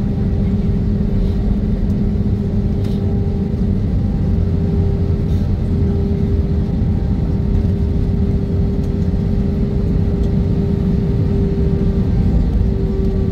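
Jet airliner cabin noise heard beside the wing while the plane rolls on the ground after landing: a steady engine and airframe rumble with a constant hum over it.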